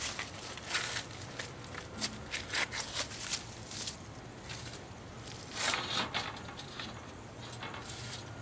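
Things being picked up and moved off a work table: scattered knocks, clatters and rustles at irregular moments, the largest cluster about five to six seconds in, over a faint steady low hum.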